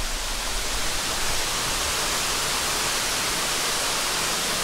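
Steady rushing hiss of a small waterfall pouring down a rock face.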